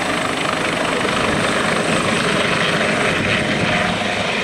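Airbus EC145 T2 twin-turbine helicopter hovering low and lifting off, its rotor noise and engines running steadily, with a thin high whine held over the whole sound.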